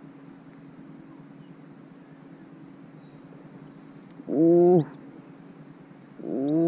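Two short wordless vocal sounds from a person, each about half a second long, pitched and drawn out, about two seconds apart, over a steady low hum.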